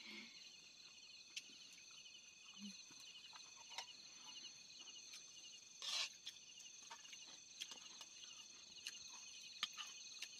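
Crickets chirping, several faint pulsing high-pitched trills going on together, with a few small clicks and one brief louder noise about six seconds in.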